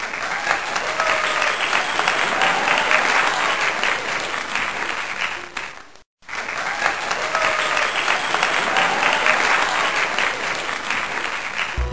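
Crowd applauding and cheering, which drops out for a moment about halfway through and then starts again.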